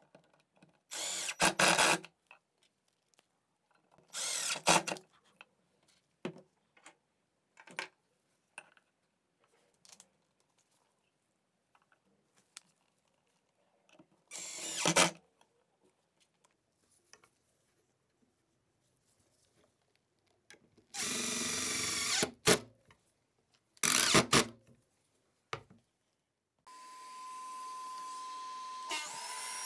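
Cordless driver running in five short bursts, driving screws through metal brackets into a wooden shelf. A few seconds before the end, another motor starts up and runs steadily with a constant high whine.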